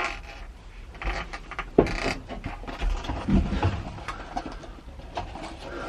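Scattered small clicks, knocks and rustling of something being handled, with a sharper knock about two seconds in.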